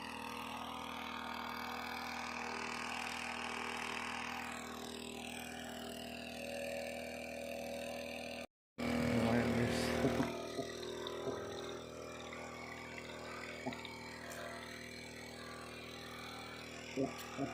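A small engine running steadily with an even hum, cut off by a brief dropout about halfway through. A few light knocks come near the end.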